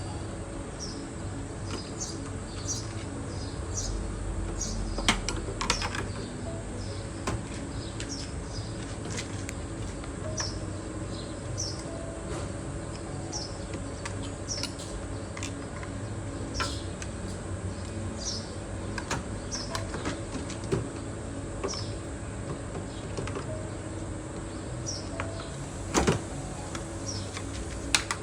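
A small bird chirping repeatedly in the background, short high notes about once a second, over a steady low hum. Occasional sharp clicks and knocks of plastic parts being handled stand out, loudest about five seconds in and near the end.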